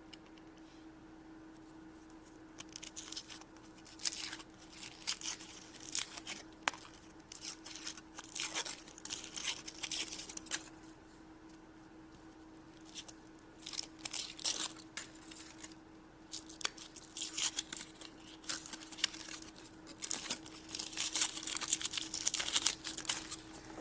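A chocolate surprise egg's wrapper being unwrapped by hand: irregular crinkling and tearing in bursts, with a couple of short pauses, over a faint steady hum.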